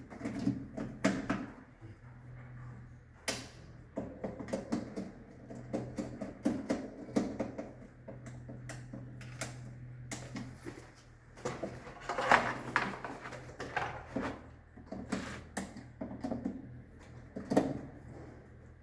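Irregular clicks, knocks and plastic clatter of miniature circuit breakers being handled and fitted in a consumer unit, over a steady low hum.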